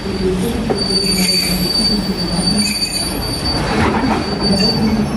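Passenger coaches rolling along a station track with a steady low rumble of the wheels. A thin, high, steady squeal comes in about a second in and fades near the end.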